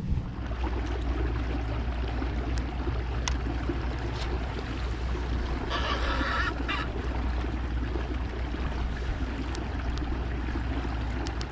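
Steady low rumble of wind and water around a kayak on open water, with one short harsh call about halfway through.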